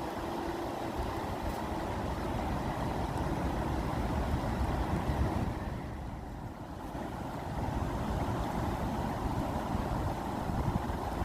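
Water rushing steadily with a deep low rumble, easing for a moment about six seconds in.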